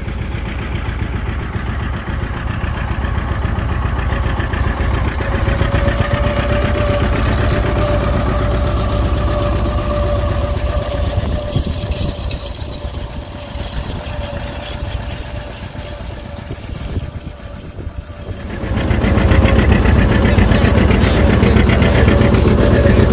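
1951 John Deere R's two-cylinder diesel engine running steadily as the tractor pulls a drag harrow across a field. The engine becomes much louder and closer in the last few seconds.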